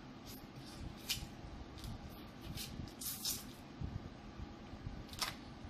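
Close-up wet eating sounds: sucking and slurping sauce from a seafood shell, with short lip smacks and clicks and one longer slurp about three seconds in.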